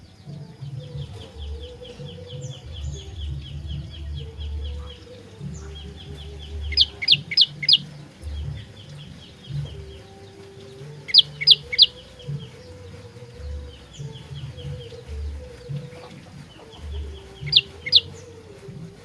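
Prenjak lumut singing: fast runs of short chattering notes, broken by loud, sharp, high notes in quick groups of four, then three, then two.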